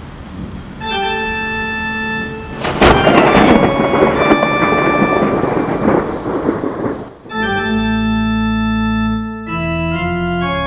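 Held organ chords over a rain and thunder sound effect. Rain hiss at first, then an organ chord about a second in, a loud thunder crash about three seconds in that rumbles on for several seconds, then a new run of sustained organ chords that shift near the end.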